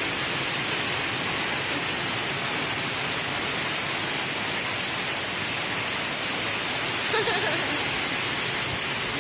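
Heavy rain falling steadily, a constant hiss. A brief voice sounds about seven seconds in.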